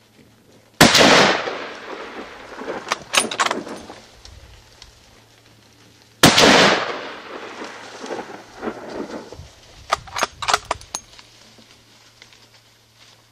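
Two hunting gunshots about five and a half seconds apart, each trailing off in a long echo and followed by a few sharp clicks and knocks.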